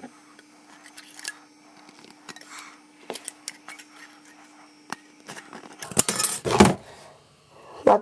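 Scissors snipping through thin drink-can metal: small scattered metallic clicks and snips, then a louder noise about six seconds in lasting about half a second.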